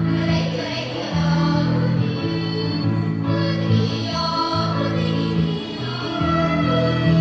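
Children's choir singing together over instrumental accompaniment with a steady bass line.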